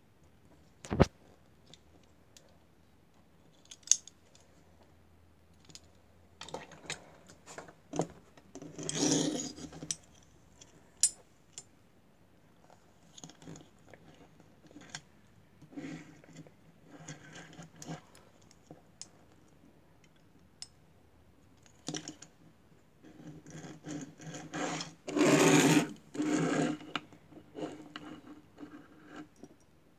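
Small die-cast metal toy vehicles handled on a wooden tabletop: sharp clicks and knocks of their metal and plastic parts, with stretches of rubbing and scraping that are loudest twice, for about a second each.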